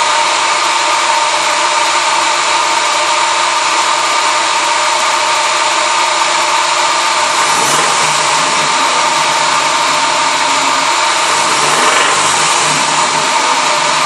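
Toyota 22R-E four-cylinder engine running, with a minor rod knock, a sign of a worn connecting-rod bearing.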